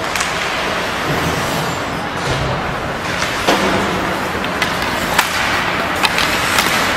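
Ice hockey play: a steady scraping hiss of skates on the ice, broken by several sharp clacks of sticks hitting the puck and ice.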